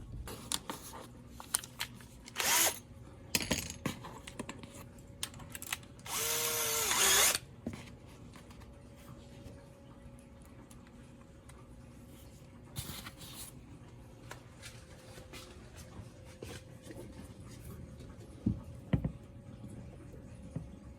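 Power drill driving screws in short bursts to mount a screen door roller, the longest run of just over a second coming about six seconds in. Small clicks and handling knocks fall between the runs.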